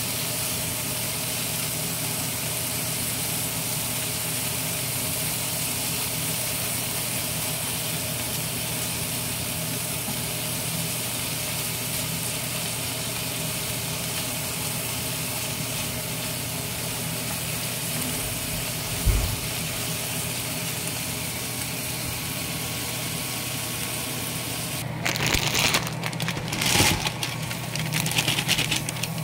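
Shrimp sizzling in a frying pan over a steady low hum, with a single knock partway through. Near the end a plastic instant-noodle packet crinkles loudly as the noodles are tipped into a pot.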